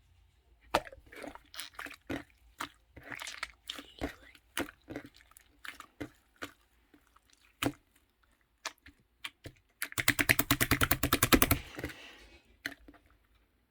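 Handmade slime being squished and pressed by hand, giving scattered sticky pops and clicks. About ten seconds in comes a rapid run of pops, about ten a second, lasting nearly two seconds.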